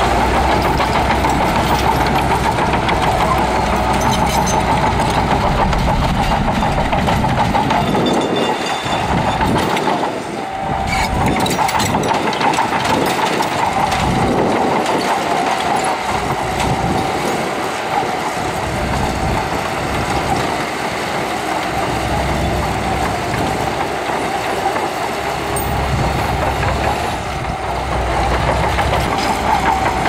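Shantui DH17 crawler bulldozer at work pushing sand: its diesel engine running steadily under load, with the metallic clatter of its steel tracks. The sound eases briefly about ten seconds in.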